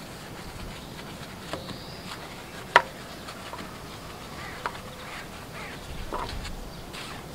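A few sharp clicks and taps over a faint steady hiss, the loudest a little under three seconds in.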